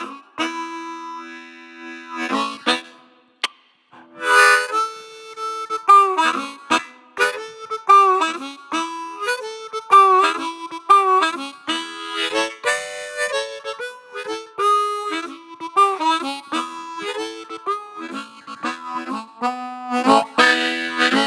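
Harmonica played solo into a microphone: a run of held chords and single notes, with many notes bent down and back up in pitch.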